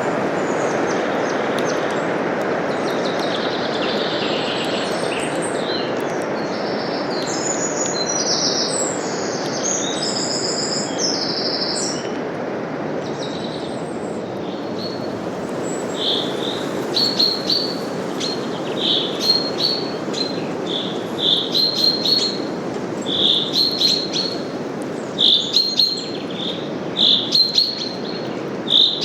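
Steady forest wind rustling through leaves, with songbirds chirping over it: a mix of different calls in the first half, then one bird repeating a short, high chirp about once a second.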